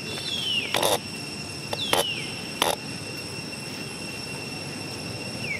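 Steady, high-pitched insect drone. Three times a short whistled call falls in pitch over it, and there are a few brief sharp rustling clicks.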